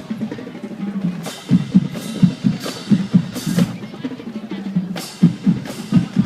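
Marching band drumline playing a cadence: a steady run of bass and tenor drum strokes with snare, and cymbal crashes about four times.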